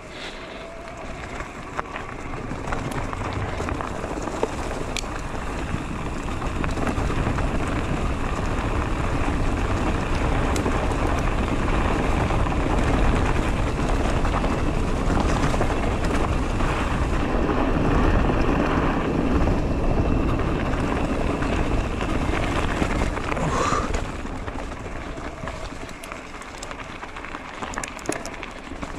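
Haibike SDURO FullNine 4.0 electric mountain bike riding a wet, rooty, stony trail: tyres rolling and rattling over roots and stones, with wind rushing on the action camera's microphone. It grows louder through the middle and eases about three-quarters through, where there is a brief squeak.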